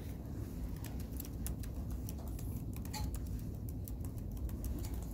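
Quick, irregular clicks of a computer keyboard and mouse being worked, over a steady low hum.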